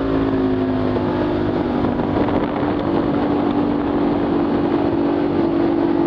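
River Pro jet boat's engine running steadily under way, a loud drone over a rush of wind and water. It sags slightly in pitch in the first second, then holds steady.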